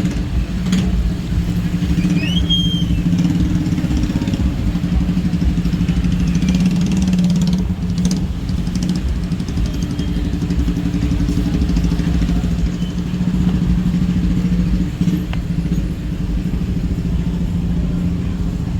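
Busy street traffic dominated by motorbikes, their engines running in a steady low hum. A brief rising high-pitched tone sounds about two and a half seconds in.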